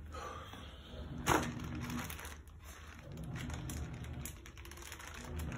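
Zipper-seal plastic bag of fish being handled and sealed: plastic crinkling, with one sharp snap about a second in. A low steady hum runs underneath.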